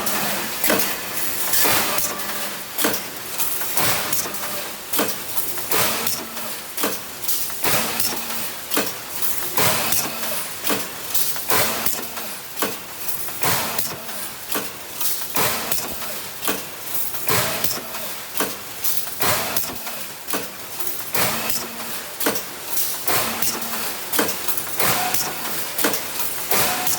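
Automatic wire mesh welding machine running through its cycle: a sharp clack about once a second as each weld stroke lands, with a low electrical hum that comes and goes between strokes.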